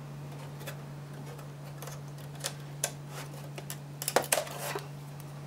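Scattered light clicks of hands on circuit cards in the metal card cage of a Fairchild F800 flight recorder. About four seconds in comes a quick, louder cluster of clicks and scrapes as a card is pulled from its slot.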